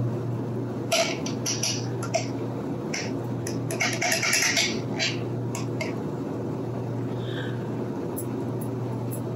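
A metal knife scraping and clinking inside a glass jar as lemon curd is dug out, in short bursts through the first half, over a steady low hum.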